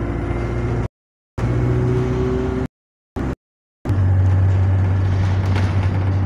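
Bus engine heard from inside the passenger saloon, running with a steady low hum. The sound drops out completely three times in the first four seconds, then returns louder and holds steady.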